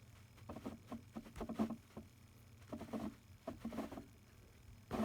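A keyboard cable being untangled by hand: light rustles and soft clicks in short bunches, the cable and its plug knocking lightly as it is handled.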